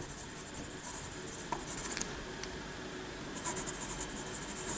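Pen scratching on paper as words are handwritten, in several short runs of quick strokes with brief pauses between, the longest about three and a half seconds in.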